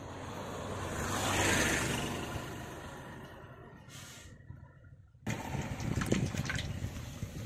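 A rushing noise swells and fades over the first few seconds. Then, starting suddenly about five seconds in, used engine oil drains in a thin stream from the power tiller's sump into a metal basin, trickling and spattering.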